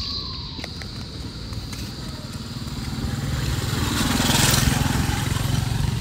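Motorcycle engine running, growing louder to a peak about four and a half seconds in and then easing slightly.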